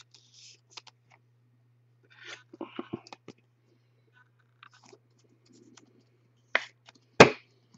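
Trading cards and packaging handled on a table: scattered light clicks and rustles, a busier patch about two to three seconds in, then two sharp knocks near the end, the second the loudest, over a faint steady low hum.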